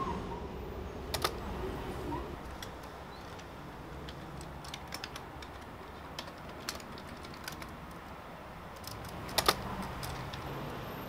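Typing on a computer keyboard: irregular key clicks in short runs with pauses, two louder clicks about a second in and near the end.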